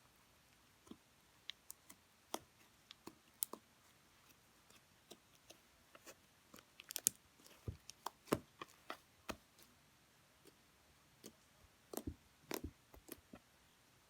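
Slime being squeezed and worked by hand: an irregular scatter of soft, sticky clicks and pops, busiest in the middle.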